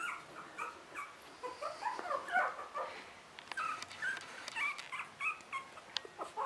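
Three-week-old Russian Toy puppies whimpering: a run of short, high, squeaky cries, a few a second.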